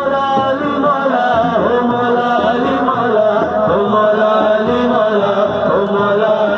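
A man sings a Sufi nasheed into a microphone in a long, wavering, ornamented line, with a daf frame drum beating a low steady rhythm underneath.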